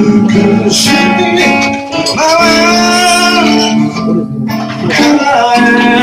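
A song played on guitar with singing; the voice holds one long wavering note in the middle.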